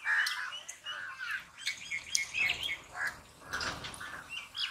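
Small birds chirping and warbling in quick, repeated short calls, mixed with scattered short sharp clicks.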